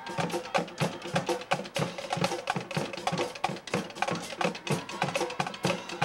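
Drums playing a fast, steady beat, several strikes a second, with faint band instrument tones underneath.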